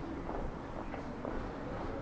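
Street ambience: indistinct chatter of passers-by over a steady low rumble.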